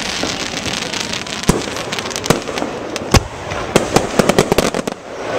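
Aerial fireworks going off: several single bangs about a second apart, then a rapid string of crackling pops near the end.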